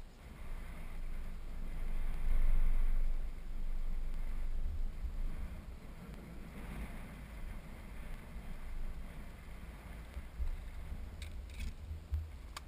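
Wind buffeting the microphone in uneven gusts, a low rumble that swells about two seconds in and then eases. A couple of light knocks come near the end.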